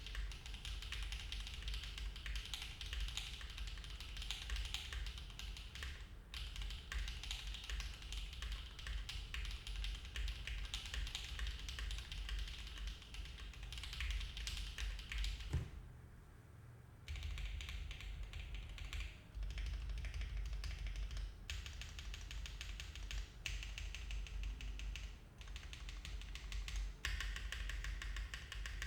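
Continuous fast typing on a custom mechanical keyboard with stock HMX Macchiato switches in an aluminium plate with no foam, under GMK keycaps: a dense stream of key clacks. The typing stops briefly about halfway through.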